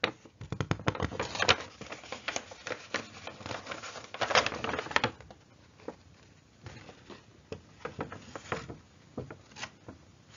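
Pages of a paper booklet being handled and turned close to the microphone: irregular rustling and crinkling of paper with small clicks, loudest about a second and a half in and again around four to five seconds, then lighter handling.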